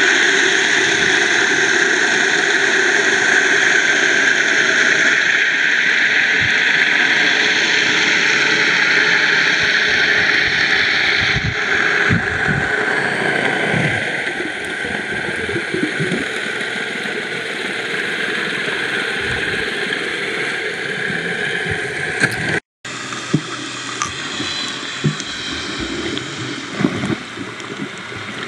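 Underwater sound from a camera held under the sea while snorkelling: a steady rushing hiss of water with scattered low gurgles and pops. It grows quieter about halfway through and cuts out for a split second near the end.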